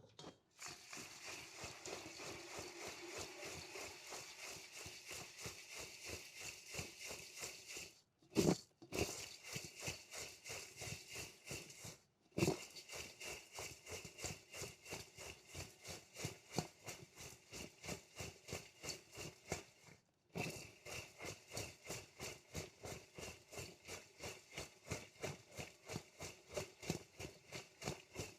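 Soft 'mold tofu' being pressed and squished over and over in a steady rhythm of about three squishes a second, with a couple of louder knocks and short pauses.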